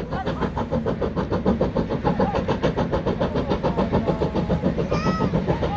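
Steam locomotive working along with a rapid, even chuffing beat as the train crosses the viaduct. A brief higher-pitched tone sounds about five seconds in.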